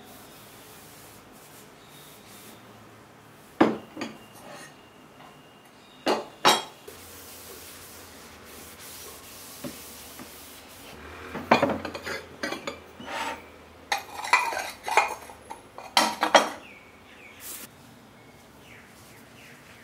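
Hard objects knocking and clinking against a wooden bookshelf as items are handled and cleared: a few single knocks, then a busy run of clattering knocks and clinks in the second half.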